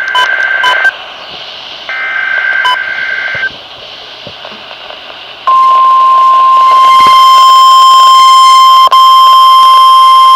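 Emergency Alert System SAME header: two bursts of rasping digital data tones about a second apart. After a short pause comes the NOAA Weather Radio 1050 Hz warning alarm, one loud, steady, piercing tone held for about five seconds, which marks an urgent weather warning.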